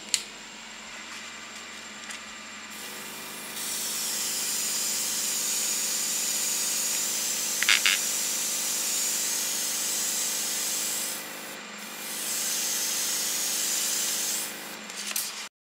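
Homemade 12 V DC air compressor pump running steadily with a hum, while an airbrush fed by it sprays water with a strong hiss. The spray stops briefly about three-quarters of the way through and then resumes; a sharp double click sounds about halfway.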